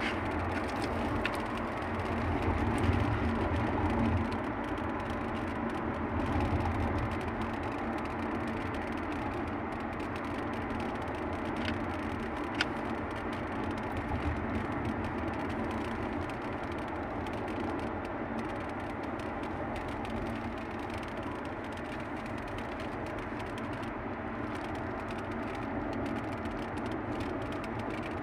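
Steady road noise of a car driving along a highway, heard from inside the cabin: a continuous low rumble with a rushing hiss and no change in pace.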